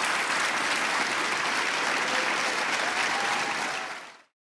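Audience applauding steadily, then fading out quickly a little after four seconds in.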